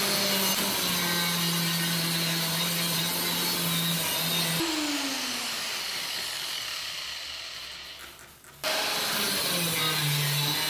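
Angle grinder with a thin cut-off disc cutting through the rusty steel of a cleaver blade, its motor running at a steady pitch. About four and a half seconds in the motor is released and the disc spins down with a falling whine that fades away over several seconds, then the cutting noise comes back abruptly near the end.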